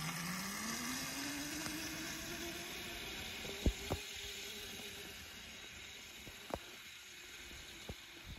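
Razor electric kids' dirt bike's motor whining, rising in pitch as it speeds up over the first couple of seconds, then holding steady and fading as the bike moves away. A few short sharp knocks come through, the loudest about three and a half seconds in.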